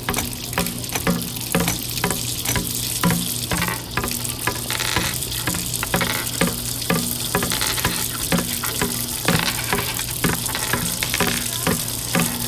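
Water running from a tap in a steady hiss, layered with a steady low hum and a repeating rhythm of short clicks and low thumps, about two to three a second.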